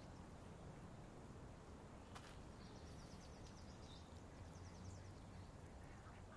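Near silence: faint outdoor ambience, a steady low rumble with a faint, high, rapidly ticking trill about three seconds in and again near the end.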